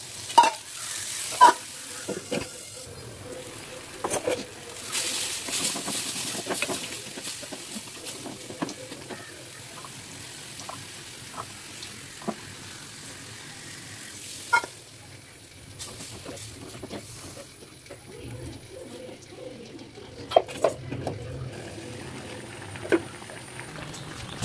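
Cooking sounds at an earthenware pot: tamarind water poured over the spiced tomato mixture, then stirring, with a few sharp clinks and knocks of utensils against the pot.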